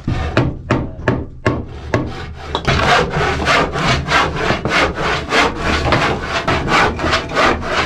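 Handsaw cutting wood in back-and-forth strokes. The first few strokes are slow and uneven, then it settles to a steady two to three strokes a second from about two and a half seconds in.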